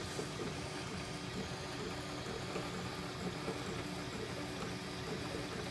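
CTC 3D printer's stepper motors whining in short, changing tones as the print head moves, over a steady hiss.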